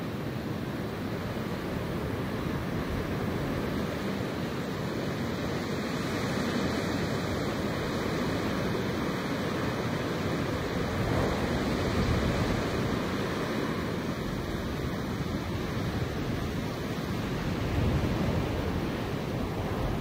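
Wind blowing steadily through grass and trees, swelling in gusts about halfway through and again near the end.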